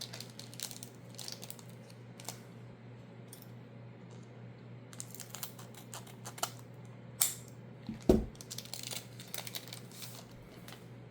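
Magic: The Gathering booster pack being handled and opened: foil wrapper crinkling and tearing, with light clicks of cards being handled, over a low steady hum. A dull thump about eight seconds in.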